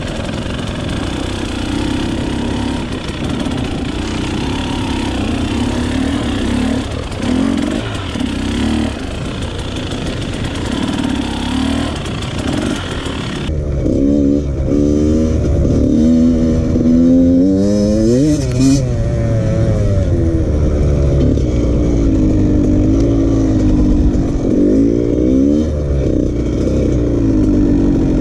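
Dirt bike engine revving and easing off under changing throttle while riding: first a two-stroke Husqvarna under a steady hiss. About 13 seconds in the sound changes abruptly to another bike's engine, whose pitch rises and falls repeatedly as the throttle opens and closes.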